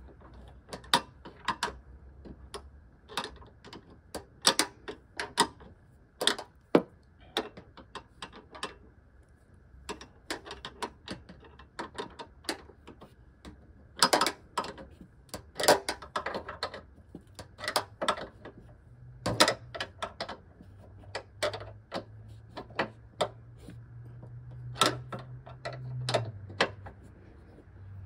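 Socket ratchet clicking in short, irregular runs of sharp clicks as a hood hinge bolt is driven in and tightened.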